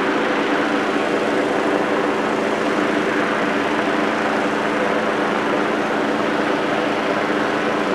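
Hot air balloon inflator fan's gasoline engine running steadily, blowing cold air into the envelope, with an even drone.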